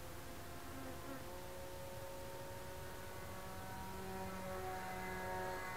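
Homemade foam RC biplane's motor and propeller buzzing as it flies overhead, the pitch of the whine changing a few times.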